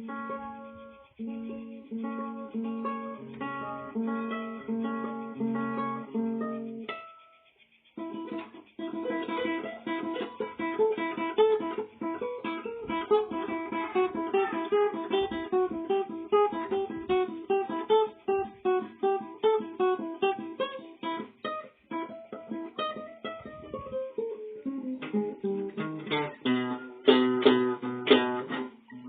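Acoustic guitar music, plucked notes. A repeating chord pattern stops briefly about seven seconds in, then a faster run of picked notes follows, with louder strums near the end.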